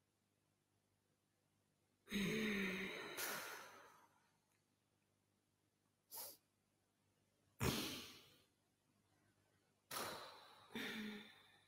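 Human breath and voice sounds: about six separate sighs and sharp exhalations, each starting suddenly and trailing off, two carrying a brief low voiced tone, with silent gaps between.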